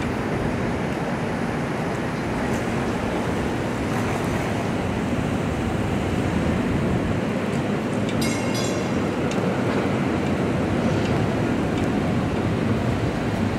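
Steady outdoor rumble and hiss of street noise as PCC streetcar 529 approaches from a distance, growing slightly louder in the second half. A short, high metallic ringing comes about eight seconds in.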